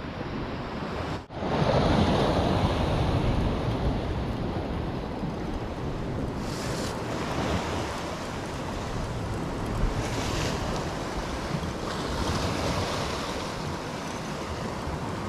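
Sea waves washing against a rocky shore, with wind on the microphone. There is a short dip a little over a second in, then the sound goes on steadily.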